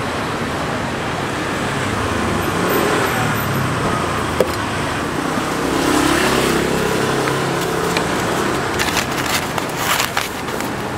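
Steady street traffic noise that swells louder about six seconds in. Near the end, a quick run of sharp clicks and creaks as a polystyrene foam takeaway box is handled and snapped shut.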